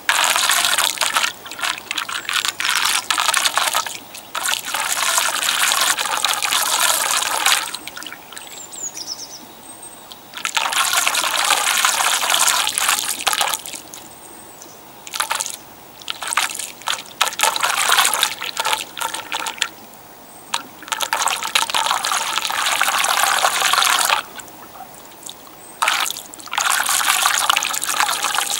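Floodwater draining down a small hole in a road surface, trickling and swirling into it. The flow comes in spells of a few seconds, each followed by a brief quieter gap.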